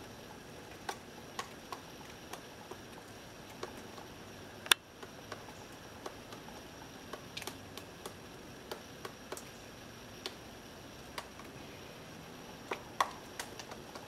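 Pileated woodpecker excavating into a tree trunk: irregular single knocks of its bill on the wood, a few to the second at most. A sharp, loud knock comes about five seconds in and another near the end.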